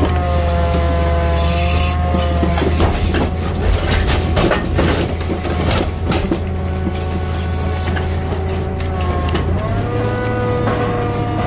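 Grapple truck's engine running steadily under load, with a hydraulic whine that bends up and down in pitch as the boom and rotating grapple work. About three to six seconds in, pruned branches crackle and snap as the grapple grabs them in the container, and near the end the engine hum steps up in pitch.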